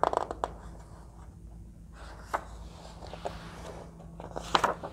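Pages of a hardcover picture book being turned and pressed flat by hand: a few short paper rustles and taps, the loudest near the end.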